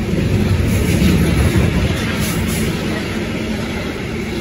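Freight train of covered sliding-wall wagons passing close by, a steady rumble of wheels on the rails, loudest about a second in and easing slightly after.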